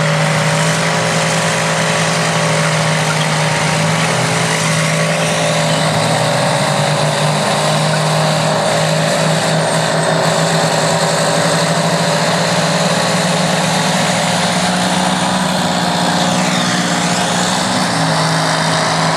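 Engines of vintage crawler bulldozers running steadily together.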